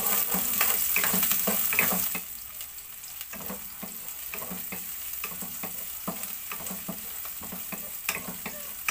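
Sliced onion and garlic sizzling in a hot nonstick pot while a wooden spatula stirs them, with frequent short scrapes and taps of the spatula against the pan. The sizzle is louder for about the first two seconds, then settles lower.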